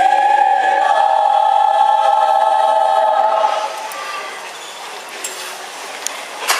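A mixed choir of men and women singing a long held chord, which cuts off about three and a half seconds in. After the cutoff there is a softer, even hall noise and a sharp click near the end.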